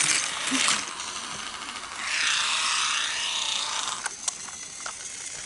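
Small battery-powered Magic Tracks toy car whirring, its motor and plastic wheels running on plastic track. The whirring fades about a second in and swells again in the middle. Near the end come a couple of sharp plastic clicks as the car is handled.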